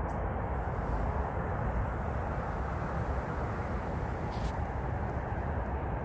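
A steady low rumble of background noise, with one short high-pitched sound a little over four seconds in.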